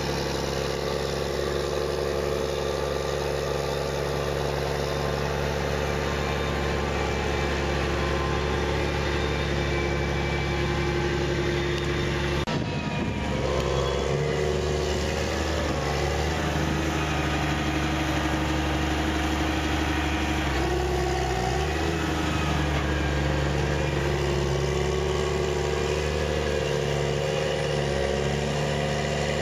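Diesel engine of a Challenger tractor running steadily under load while pushing silage up a clamp. About halfway through the engine note changes abruptly to a slightly different steady pitch.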